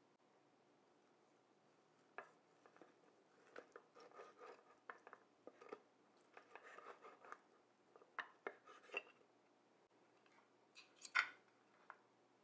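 Faint sounds of a knife and carving fork slicing a roasted rack of lamb into chops: scattered short clicks and scrapes as the blade cuts through and meets the board, with one sharper knock near the end, the loudest.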